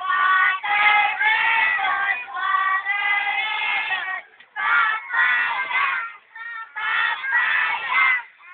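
A group of young children singing together in high voices, in held phrases with two short breaks.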